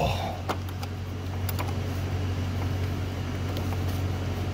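Steady low hum with a few faint metallic clicks as a 27 mm socket on an extension turns the ICP sensor out of a Ford 6.0 Powerstroke diesel engine.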